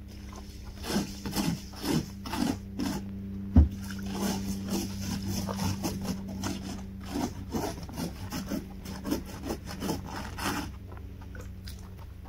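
Plastic ice scraper scraping frost and ice off a car windshield in quick, repeated strokes, with one sharp knock about three and a half seconds in.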